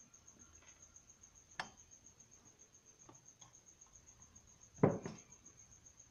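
Tweezers and small watch parts clicking and knocking against the bench and the metal movement holder: a sharp click about a second and a half in, a few faint ticks around three seconds, and a louder knock near five seconds. A faint high-pitched pulsing trill runs underneath.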